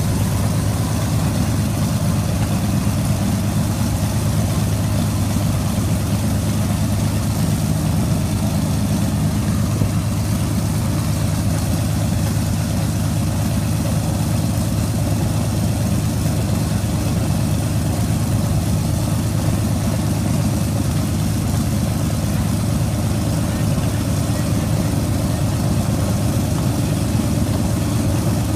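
Avro Lancaster's Packard-built Rolls-Royce Merlin V12 engines idling steadily during a ground run, a deep even drone with no change in speed.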